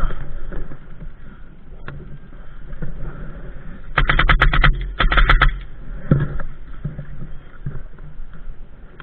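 Airsoft gun firing two short rapid bursts, about four seconds in and again a second later, over a low rustling background.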